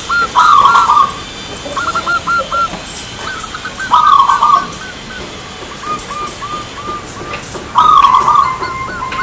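Zebra dove (perkutut) singing: runs of quick cooing notes, broken by a louder drawn-out coo three times, about every four seconds.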